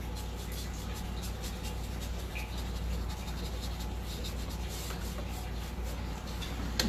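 Chip brush bristles brushing and dabbing paint along a wooden tabletop edge: a faint, irregular scratchy rubbing over a steady low hum, with a sharper click at the very end.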